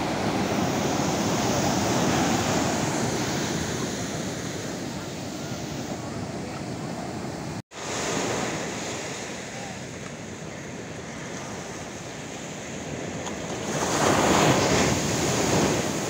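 Sea surf breaking and washing up a sandy beach. The rush swells and fades with each wave and is loudest near the end. The sound cuts out for an instant a little before halfway.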